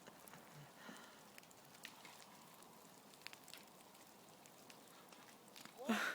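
Faint scattered drips and small ticks of water, then a short voice near the end.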